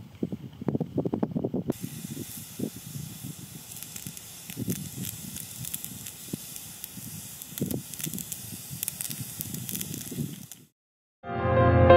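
Water jet from a firefighter's hose nozzle hissing steadily as it damps down smouldering burnt stubble. The hiss starts about two seconds in and cuts off abruptly near the end. Wind gusts buffet the microphone throughout.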